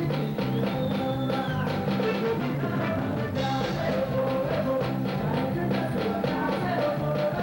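A band playing an upbeat song with a steady drum beat and a moving bass line; a wavering melody line, voice or instrument, comes in about halfway through.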